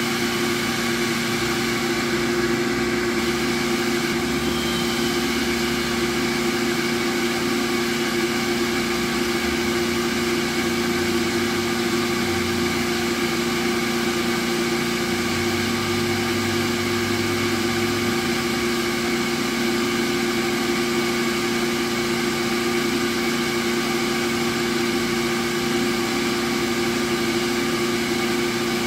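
Automatic irrigation disc filter station running under water pressure: a steady machine hum with several held tones over a rush of flowing water. The sound stays the same while one of its two disc filters backflushes, its discs spinning loose.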